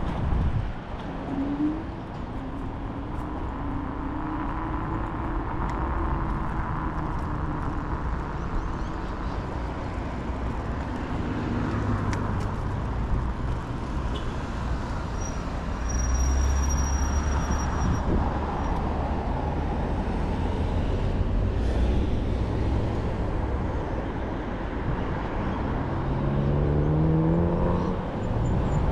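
Kaabo Wolf King GT electric scooter on the move: steady wind and road noise, with the hub motors' whine gliding up and down as speed changes and climbing near the end.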